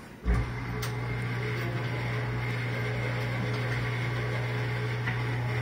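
Motorized cutaway model of a John Deere 531 large-block engine turning over slowly, a steady low mechanical hum that comes in abruptly just after the start.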